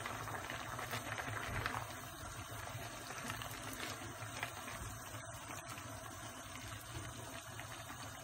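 A pot of spaghetti boiling, the water bubbling steadily, a little louder for the first couple of seconds.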